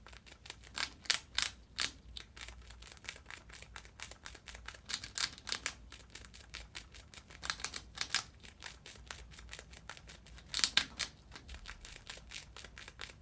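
A mouse gnawing: rapid, dry, irregular clicks and scrapes, with louder bunches about a second in, around five, seven and a half, and ten and a half seconds in.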